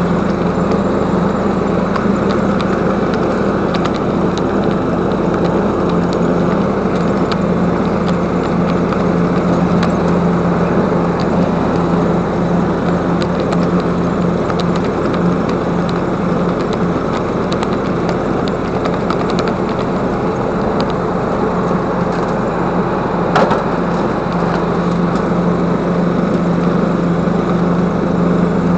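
Small engine running steadily at constant speed, a continuous drone with no change in pitch. A single sharp click about three quarters of the way through.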